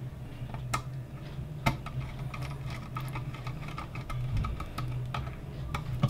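Scattered light clicks and taps from a thin wire being handled and pushed into a plastic screw terminal block, a few separate ticks at uneven intervals over a steady low hum.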